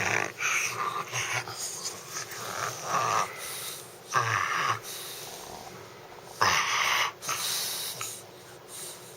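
English bulldog puppy making a weird noise with its breathing: a series of noisy breaths a second or two apart, the loudest about six and a half seconds in.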